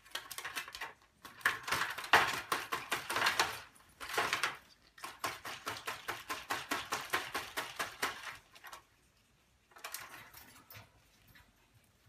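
Rapid, sharp tapping and clicking, several clicks a second, coming in bursts of a few seconds with short pauses between them.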